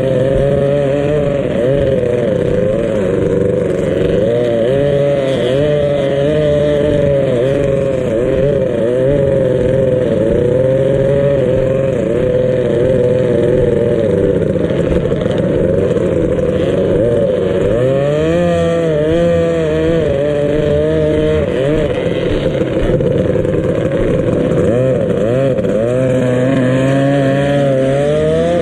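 Racing powerboat engine running hard, its pitch wavering up and down continuously.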